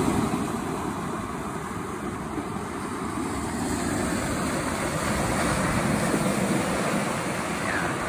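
Big Lake Superior waves breaking on the shore: a steady rushing surf that eases a little, then swells again.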